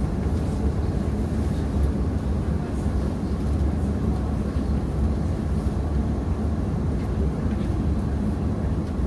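Tram running, a steady low rumble with no distinct knocks or changes.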